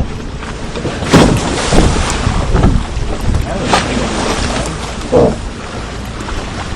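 Wind buffeting the microphone in a steady low rumble, broken by a handful of sharp knocks or scrapes at irregular intervals.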